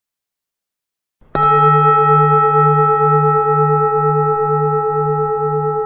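A single struck bell, about a second and a half in, ringing on with a slow fade; its low hum pulses about twice a second.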